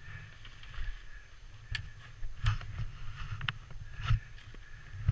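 Honda XL500S single-cylinder four-stroke engine running at low speed on a rough dirt trail, with several sharp knocks and clunks at irregular times as the bike jolts over ruts.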